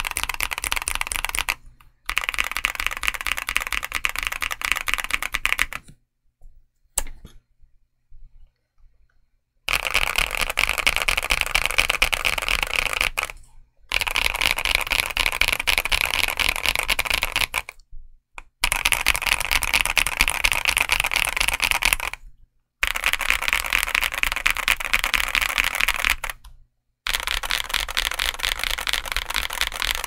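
Fast typing on a MOD007 mechanical keyboard with CIY Asura Pre Advanced tactile switches and double-shot ABS keycaps. Dense runs of key clacks lasting a few seconds each are broken by short pauses, with a longer lull of a few scattered keystrokes about six to ten seconds in.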